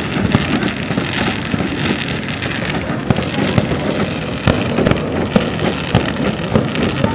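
Fireworks display: a dense, continuous crackle of many small bangs, with a few louder single bangs in the second half.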